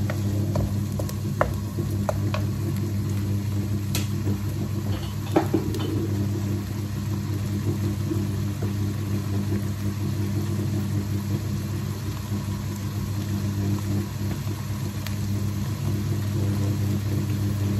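Steady low hum from a running machine, over faint sizzling of grated onion frying in a wok on medium flame. A few light taps of a wooden spoon against the pan come in the first several seconds.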